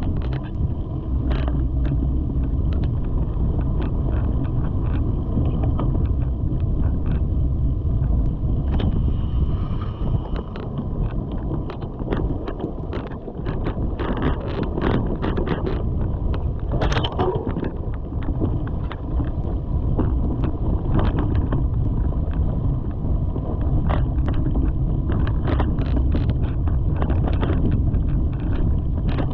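Mountain bike riding over a dirt trail: wind rushing over the microphone with a steady low rumble of tyres on dirt, broken by frequent clicks and rattles as the bike hits bumps.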